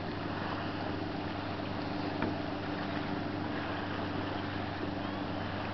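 Steady low drone of a running engine, with a faint click about two seconds in.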